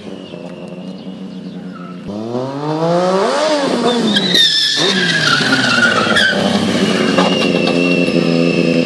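Stunt motorcycle engine revving up hard, then tyres squealing and scraping in the middle. After that the engine runs on at a steady high pitch while the bike lies on its side in the road.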